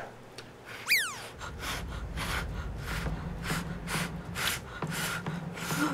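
A short falling whistle about a second in, then quick huffing breaths, about three a second, as someone with a mouthful of very hot food breathes in and out to cool it.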